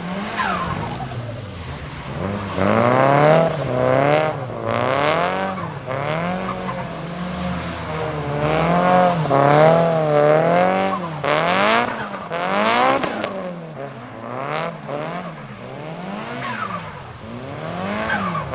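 Turbocharged Nissan Silvia S15's engine revved up and down over and over, about once a second, with tyres squealing under the wheelspin.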